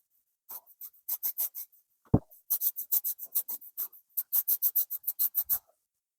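Aerosol can of clear lacquer at work on the touch-up: a run of short, quick, scratchy strokes, speeding up to about six a second in the second half, with a single knock about two seconds in.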